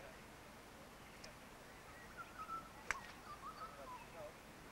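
A golf club striking a ball once, a sharp click about three seconds in, with birds chirping faintly around it.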